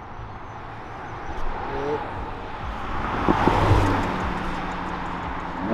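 Green Audi R8 Spyder driving past close by, its engine and tyre noise swelling to its loudest about three and a half seconds in, then fading as it pulls away.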